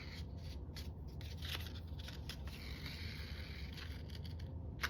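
Faint rustling and scraping of paper and sewing thread being handled, with a longer rasp about three seconds in and a small click near the end.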